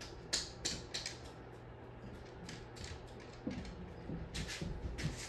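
42-inch SMC ceiling fan running: a steady low motor hum with light ticks about three times a second.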